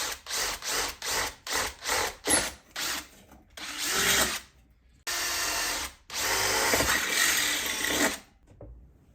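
Power drill cutting a hole for a stove pipe: about seven short trigger bursts, then longer steady runs of a second or two.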